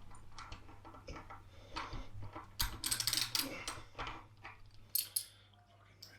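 Irregular metallic clicks, knocks and scrapes from a hand tool working the bolts that hold an electric scooter's hub motor to the rear wheel hub, as they are tightened.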